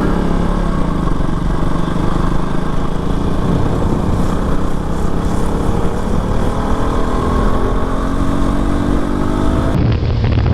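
KTM RC 200's single-cylinder engine running while riding, its pitch climbing twice as the bike accelerates. Just before the end the sound changes abruptly to a lower rumble.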